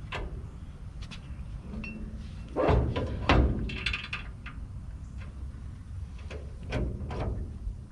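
Metal parts and tools clanking and knocking during front suspension work, a handful of sharp knocks with short ringing, the loudest two about three seconds in.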